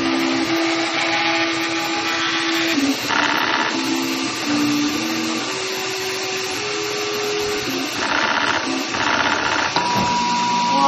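Dual-extruder 3D printer printing: its stepper motors whine at steady tones that jump to a new pitch every half-second or so as the moves change, over the steady hiss of its cooling fans. Near the end there is a click, and a new steady, higher tone begins.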